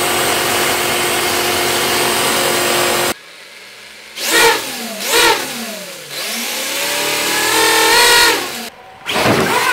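Electric RC car at full throttle in a burnout, its wheels spinning on concrete with a loud, steady noise that cuts off abruptly about three seconds in. Then the electric motor of an RC crawler held up off the ground revs its free-spinning wheels: two short rising-and-falling whines, then a longer rev that climbs to a peak near the end and falls away.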